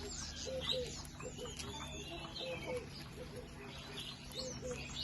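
Birds calling together: a steady run of short, low cooing notes, often in pairs, with many higher chirps and sliding whistles from small birds over them.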